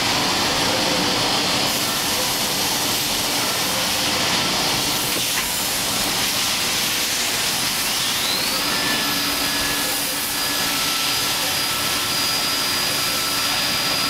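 Fadal CNC machining center running with a steady loud hiss. About eight seconds in, a whine rises in pitch and then holds steady as the spindle spins up.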